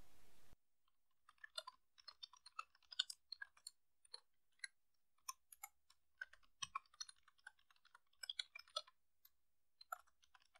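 Faint keystrokes on a computer keyboard: irregular clicks in short runs with brief gaps, starting about a second and a half in.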